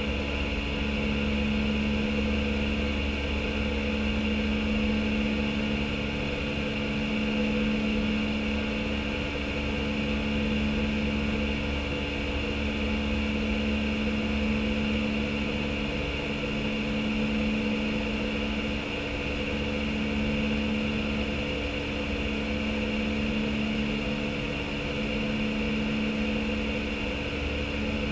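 Steady cabin noise in the cockpit of an Airbus A319 in flight: rushing airflow and a low hum, with one hum tone slowly swelling and fading every few seconds.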